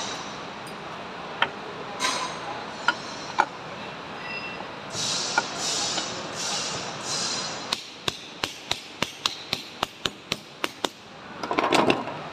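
Metal parts of a truck starter motor being reassembled by hand: scraping and a few clicks as the end cover is fitted, then an even run of about a dozen sharp taps, roughly four a second, and a louder scrape near the end.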